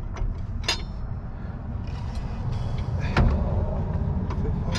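Engine of a BMW E30 being turned over by hand with a wrench: scattered metallic clicks and a stronger knock about three seconds in, over a steady low rumble.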